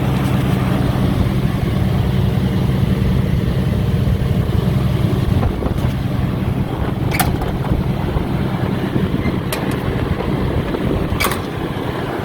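Caterpillar 330DL crawler excavator's diesel engine running steadily. It eases slightly about halfway through, and three short sharp clicks come in the second half.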